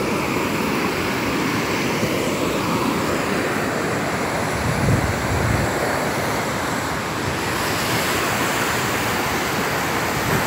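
River rapids rushing over rock, a steady loud roar of white water, with wind rumbling on the microphone about halfway through.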